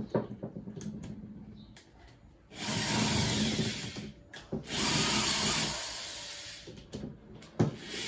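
Power screwdriver running in two bursts of about a second and a half each, backing out the screws that hold a washing-machine motor's housing together. A few light clicks of the tool against the metal motor come before and after.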